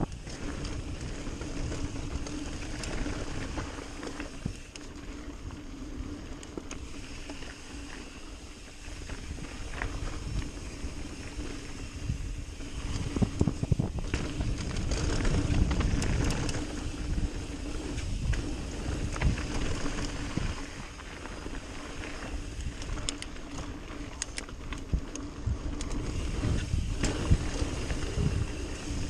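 Mountain bike riding fast down a dirt singletrack: tyres running over the dirt, wind on the microphone and the bike rattling and knocking over bumps, louder in stretches.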